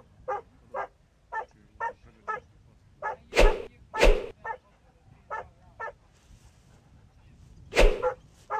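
Hunting dog barking: three loud barks, two close together midway and one near the end, among a run of short high yips about two a second.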